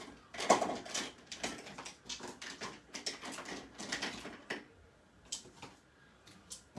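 Pens and markers clicking and clattering together as they are gathered up off a desk: a quick, irregular run of clicks and knocks that dies down after about four and a half seconds to a few faint ticks.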